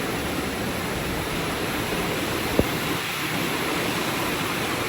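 Steady hiss of falling rain, with a single sharp click about two and a half seconds in.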